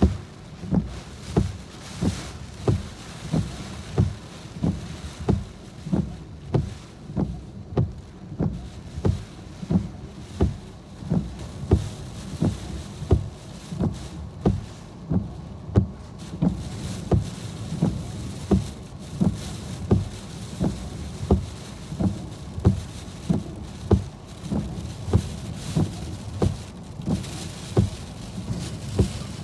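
Wind-driven heavy rain and storm noise on a car, with a steady, regular thump about one and a half times a second throughout.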